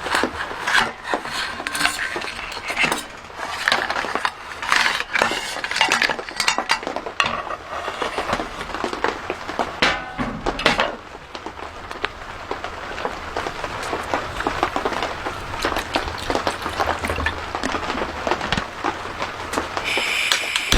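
Metal cookware and utensils clinking, clattering and scraping, in irregular bursts that thin into lighter, quicker ticking after the middle.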